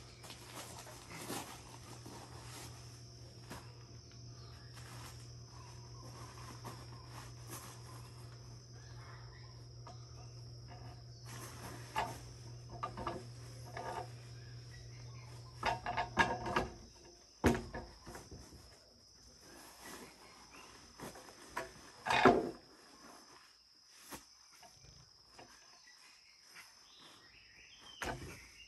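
Steady high insect trilling, with scattered sharp knocks and clatter throughout, the loudest about two-thirds of the way in. A low steady hum stops a little past halfway.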